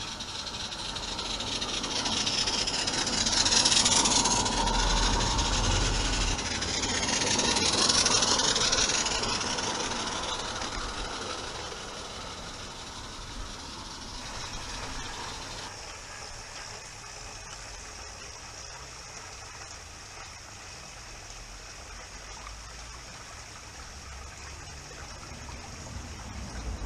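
Live-steam garden railway locomotive hissing steam: the hiss swells loud for several seconds, then dies down to a quieter steady hiss.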